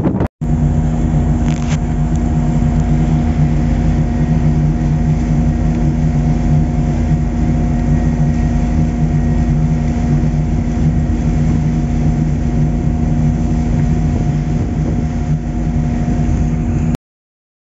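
A boat's engine running steadily, heard from on board: a constant low drone with a steady higher tone above it. It cuts off suddenly near the end.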